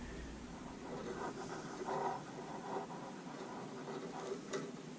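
Faint scratching and rubbing of fingers bending the tag end of a thin wire fishing leader back and forth, with a small click near the end as the wire breaks off.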